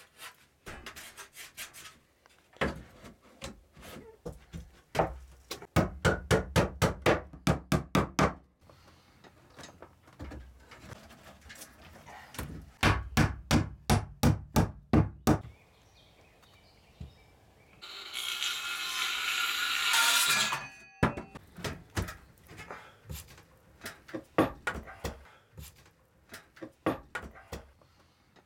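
Hammer driving nails into wooden boards, in two fast runs of blows at about four a second, with scattered knocks of the boards being handled between them. About two-thirds of the way through, a steady hiss lasts about two seconds.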